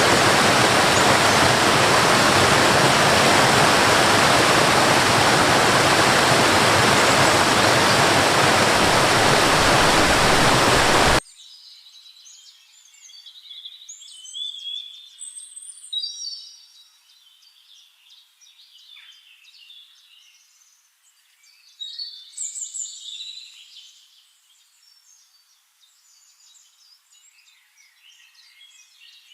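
Rushing water, loud and steady, that cuts off abruptly about eleven seconds in. Then birds singing and chirping, with louder song phrases in two spells.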